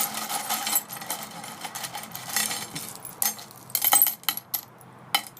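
Small cast-aluminum nuggets clinking and rattling against one another as they are handled: a run of sharp metallic clicks, with a few louder clinks a little past the middle.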